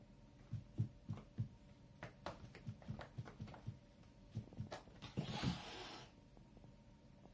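A cat's paws bumping and thumping on a carpeted cat tree, a dozen or so irregular soft knocks, then one short hiss about five seconds in, as the cat on top warns off another cat sheltering in the condo below.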